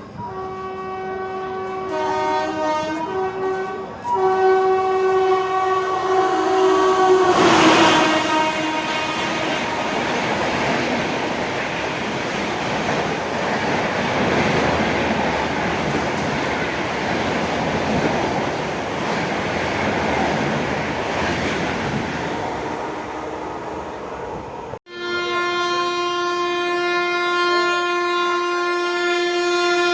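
A high-speed Indian express train sounding its horn as it approaches, the horn's pitch dropping sharply as the locomotive passes, followed by the long steady rush and clatter of the coaches going by at speed. After an abrupt cut, another train's horn sounds as one steady held chord.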